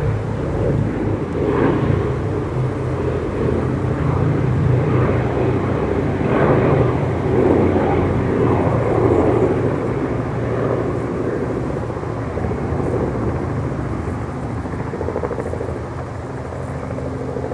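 Four Wright Cyclone radial engines of a B-17 Flying Fortress droning steadily on a low flypast, fading slowly over the second half as the bomber moves away.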